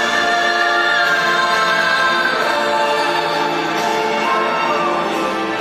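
Live pop ballad: a long, sustained high vocal line slowly falling in pitch over a choir and full band, heard from the distant upper seats of an arena.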